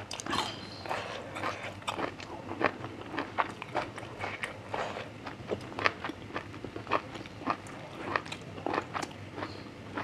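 Close-miked chewing and crunching of grilled pork intestine salad wrapped in fresh leafy vegetables. The crunches are irregular, a few a second, with soft mouth sounds between them. The meat is tough and chewy.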